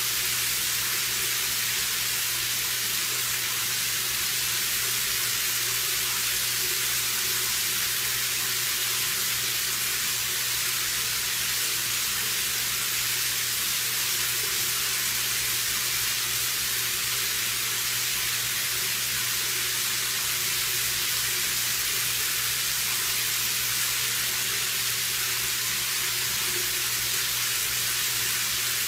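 A steady, unbroken hiss with a low hum under it.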